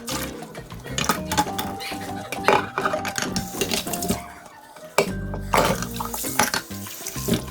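Dishes and cutlery clattering and clinking in many quick knocks while used plates are cleared and washed up, with a short lull a little past the middle.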